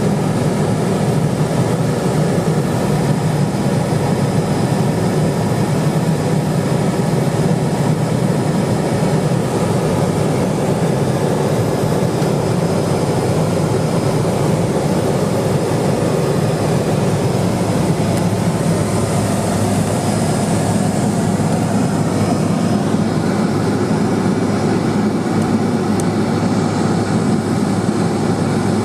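Steady drone of a Cessna 210 Silver Eagle's single turboprop engine and propeller in flight, heard inside the cabin.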